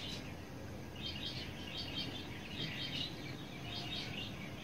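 Faint birds chirping in a series of short high calls over a low background hiss: a recorded spring birdsong sound effect laid under the video.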